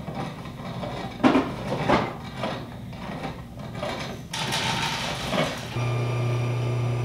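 Hand-cranked metal grain mill grinding nixtamalized corn into masa flour: gritty crunching and rasping in uneven strokes. Near the end, a steady low hum starts and carries on.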